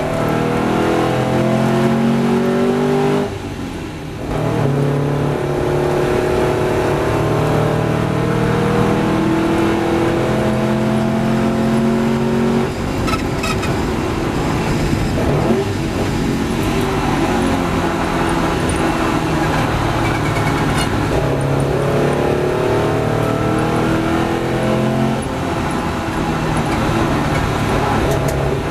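1954 Porsche 550 Spyder's air-cooled four-cam flat-four racing engine under hard driving, its pitch climbing as it accelerates through the gears and dropping back at each shift or lift, with a brief lift about three seconds in.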